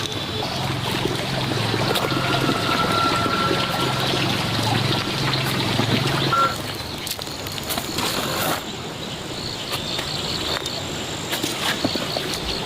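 Water pouring and trickling steadily, with a low hum underneath that stops about halfway through.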